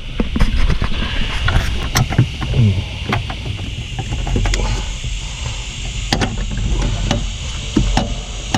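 Plastic wiring-harness connectors being worked loose from a car stereo amplifier: scattered small clicks and knocks of the locking tabs and plugs being pushed and pulled, over a steady low rumble.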